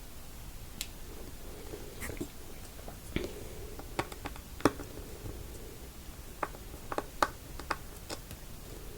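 Irregular sharp clicks and taps of a small precision screwdriver working the tiny screws inside an iPod touch 4th generation, about ten in all, the loudest about four and a half seconds in and several close together near seven seconds.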